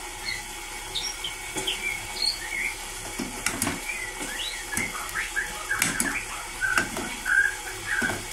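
Small birds chirping in short, high, quick calls, with a few sharp clicks and knocks joining in from about three seconds in.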